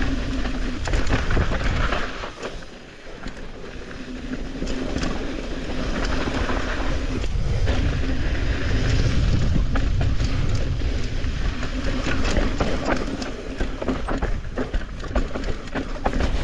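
Mountain bike riding down a rough dirt trail, tyres rolling over dirt and rocks while the bike rattles and clatters, with wind rushing over the microphone. It eases off briefly about two seconds in, then picks up again.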